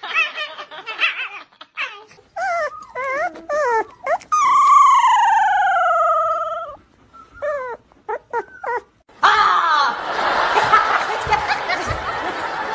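A Shiba Inu screaming in high, wavering cries, then a large fluffy dog giving one long howl that falls steadily in pitch, followed by a few short cries. From about nine seconds in, a loud rushing noise takes over.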